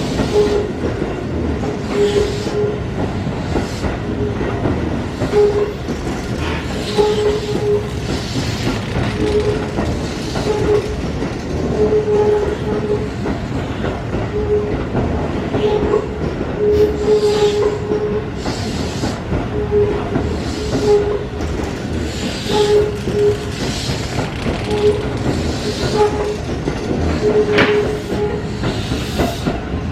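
Keihan 13000 series electric train pulling out and running past, with wheels clattering over the rail joints. A short, fairly high tone comes and goes every second or two throughout.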